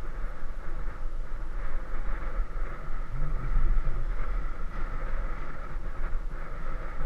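Wind buffeting the microphone of a camera riding along on a bicycle: a steady low rumble that swells and dips.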